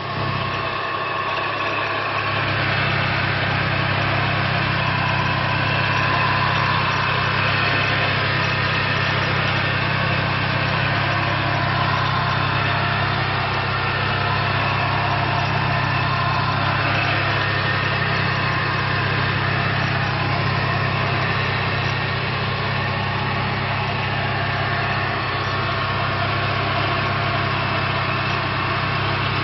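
Subaru EZ30 3.0-litre flat-six boxer engine idling steadily, heard close up under the open hood, with an even hum and a light mechanical clatter above it.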